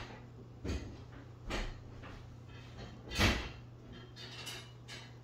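A few short knocks and scuffs, the loudest about three seconds in, over a faint steady low hum.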